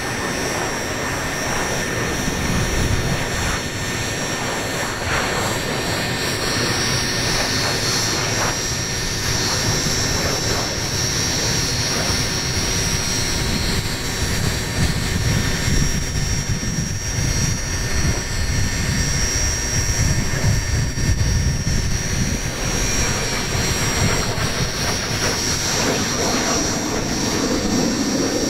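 Fouga CM.170 Magister jet trainer's twin Turbomeca Marboré turbojets as the jet flies its display overhead. A steady jet roar carries a high turbine whine that rises slightly in pitch several seconds in.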